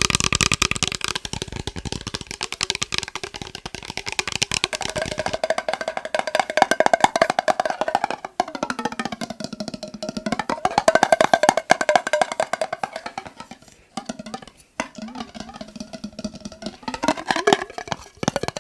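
Rapid tapping on a glass mason jar holding water, the taps ringing with a clear tone. The ringing pitch slides up and down a couple of times as the water moves in the jar, with brief pauses in the tapping.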